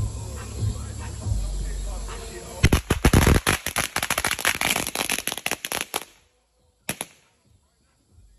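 A string of firecrackers going off: a rapid, irregular run of sharp pops for about three and a half seconds, then one last pop about a second later. A low rumble comes before the pops.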